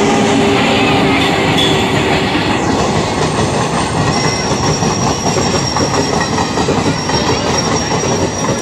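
Indian Railways express of ICF coaches behind a WAP-7 electric locomotive passing close at speed, the wheels clattering over the rail joints: the railfans' "cracking tracksound" of ICF stock. A thin high whine rides over the clatter from about halfway on.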